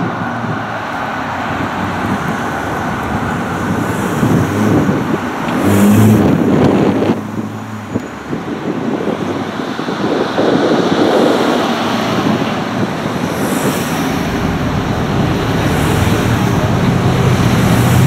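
City street traffic: cars and trucks passing with engine and tyre noise. A heavier engine rumble stands out about six seconds in and again near the end.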